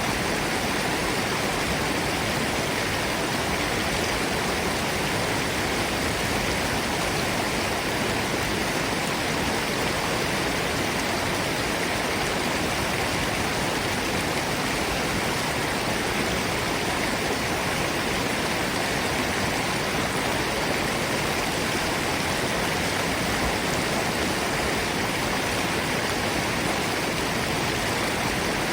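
A forest stream and waterfall rushing steadily, a constant even splashing of falling water.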